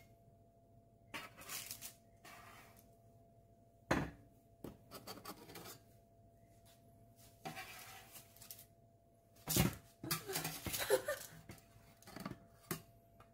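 Baked sausage buns being lifted with a spatula and set down on a wire cooling rack: scattered scrapes and light clatter, with a sharp clink about four seconds in.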